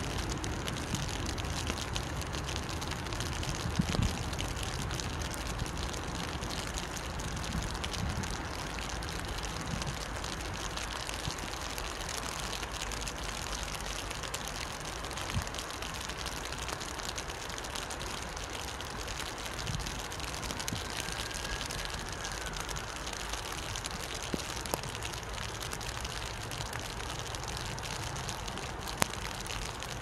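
Steady rain falling by a river: an even hiss with many fine drop ticks, a few soft low thumps and one sharper tick near the end.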